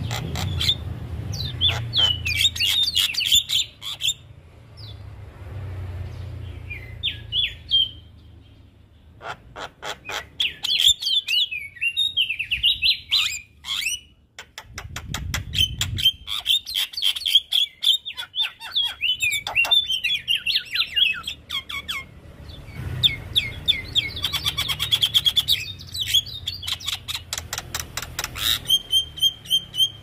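Javan myna (jalak kebo) calling and singing: runs of sharp, rapid clicks and rattles mixed with chattering, bending whistled trills, in bouts separated by short pauses.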